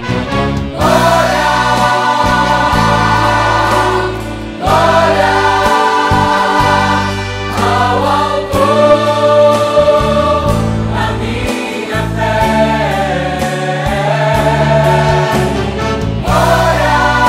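Vocal ensemble singing a gospel hymn arrangement in close harmony, holding chords in phrases about four seconds long, with a steady low bass line underneath.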